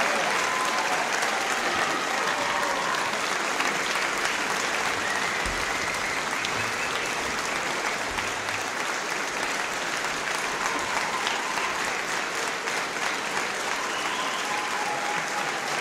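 A large concert-hall audience applauding, the clapping steady and slowly easing off.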